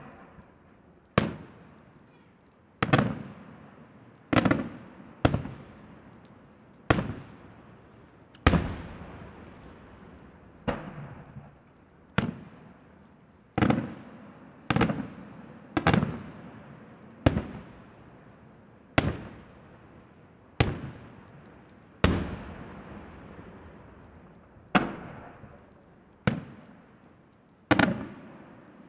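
Senatore Fireworks aerial shells bursting in a display, about twenty sharp bangs one every second or two, each trailing off in a rolling echo.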